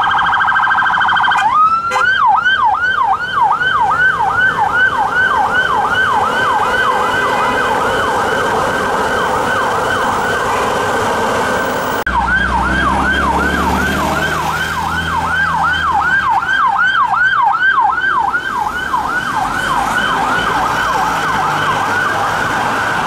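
Police siren on a BMW X5 armed response vehicle, sounding a very fast warble for the first second and a half and then switching to a yelp of quick repeating sweeps, about three a second. A low engine rumble joins under the yelp about halfway through.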